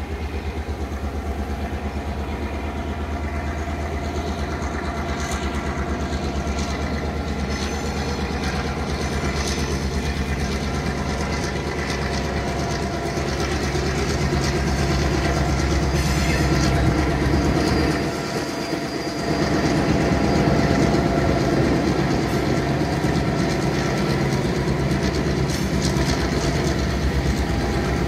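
Diesel locomotive engine running with a steady drone as it hauls a passenger train past, with the carriage wheels clattering on the rails. The engine sound briefly dips about eighteen seconds in.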